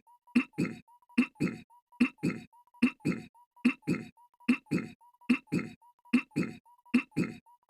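Goofy's cartoon voice clearing his throat, a short two-part "ahem" looped over and over at a little more than once a second. A faint steady whine sounds in the gaps between repeats.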